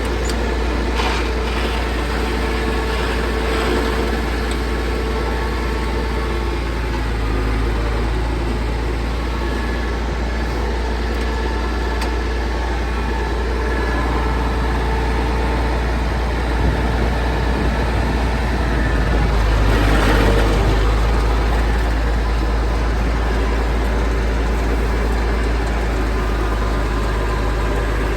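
Tractor engine running steadily with a deep low hum while driving a feed grinder, briefly swelling louder about twenty seconds in.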